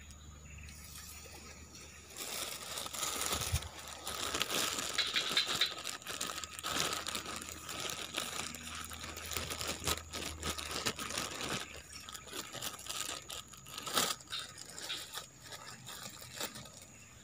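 A plastic bag crinkling and rustling close to the microphone in dense, irregular crackles, starting about two seconds in, while bait is handled out of it to rebait a fishing hook. There is one sharp click about fourteen seconds in.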